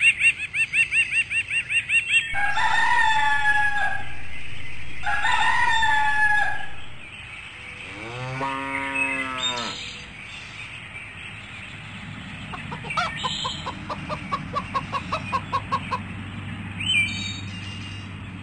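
A run of farm-animal sound effects: quick bird twittering at the start, then two long rooster crows, a single cow moo around the middle, and rapid hen clucking later on, with a short chirp near the end.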